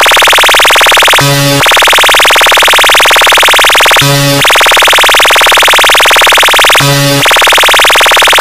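Loud electronic music played through a DJ sound system. A buzzing synth tone is held for about three seconds at a time, cut three times by a short, lower honk-like blast.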